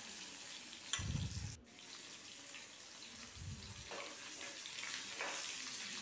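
Shallots frying gently in oil in an aluminium kadai, a faint steady sizzle, with a sharp knock about a second in and a few soft scrapes of a steel spoon stirring them.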